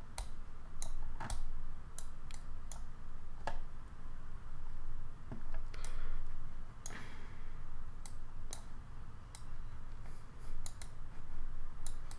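Irregular sharp clicks of a computer mouse and keyboard, a dozen or so spread unevenly, over a steady low hum.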